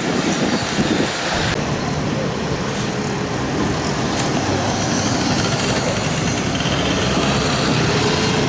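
A vehicle running close by: a steady rumbling noise that grows slightly louder, with a faint whine coming in near the end.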